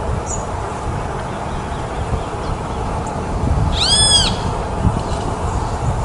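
A mockingbird gives a single arched call about four seconds in, rising then falling in pitch, over a steady low rumble; a faint high chirp comes just after the start.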